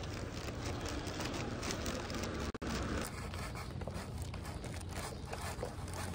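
Steady outdoor background noise with a low rumble, overlaid by scattered rustling and clicks from handling a plastic bag and cups. The sound drops out briefly about two and a half seconds in.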